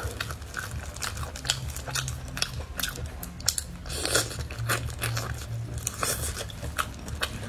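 Close-miked eating of spicy braised rabbit head: many short clicks and smacks of biting and chewing the cheek meat, with plastic-gloved fingers pulling the meat apart.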